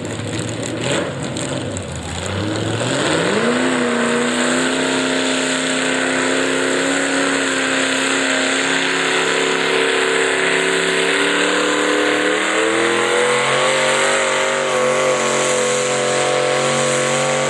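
Modified pulling tractor's engine revving up over a second or two, then held at high revs under full load as it drags a weight-transfer sled, with the pitch climbing a little about two-thirds of the way through.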